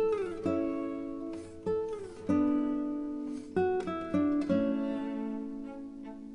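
Background music: acoustic guitar played with plucked notes and strums, some notes sliding in pitch.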